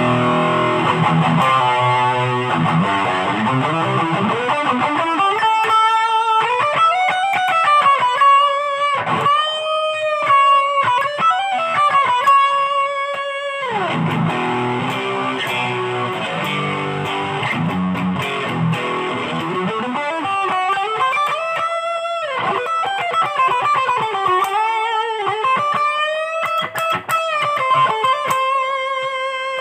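Ibanez GIO HSS electric guitar played through a Line 6 Spider III 15 amp. Chord passages alternate with single-note lead lines that climb up the neck and hold sustained notes with bends and vibrato.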